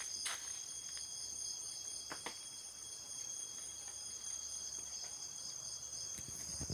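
Night insect chorus, crickets trilling steadily in several overlapping high pitches, with a few faint rustles.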